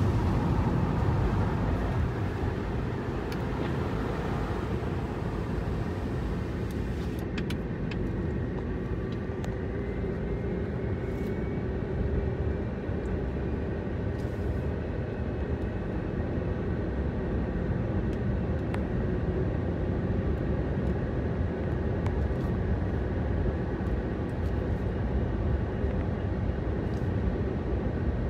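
A car driving: steady engine and tyre-on-road noise, with a faint whine that rises slowly in pitch about a third of the way in as the car speeds up.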